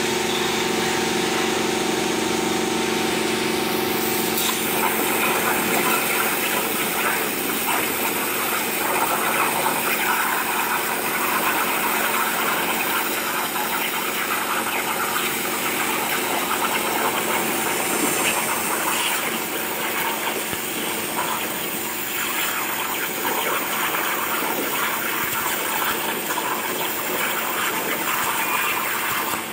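CNC plasma cutter's torch arc hissing steadily as it cuts through steel plate, over a steady machine hum.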